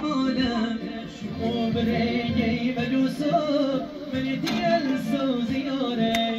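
Music with a voice singing a wavering melody.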